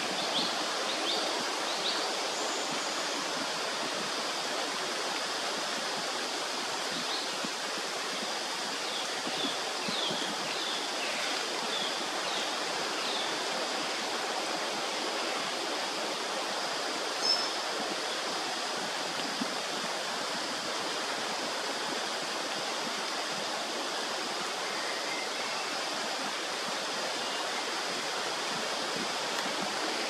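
Steady forest background: an even rushing hiss with a faint high steady hum. A few faint short bird chirps come in the first couple of seconds and again around ten to thirteen seconds in, and a single sharp tick comes a little past the middle.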